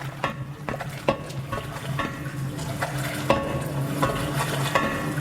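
Sound-design soundtrack for a dance piece: a steady low hum under crackling and a string of short clicks, a few to the second, slowly growing louder.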